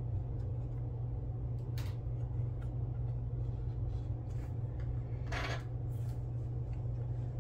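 Steady low background hum, with a few brief soft scratches and rustles of fingers working adhesive metal foil onto a plastic model car chassis, the strongest about five and a half seconds in.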